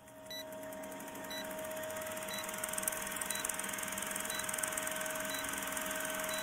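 Old-film countdown sound effect: a steady projector-like whirr with hiss and a constant hum, fine rapid ticking, and a short high beep once a second.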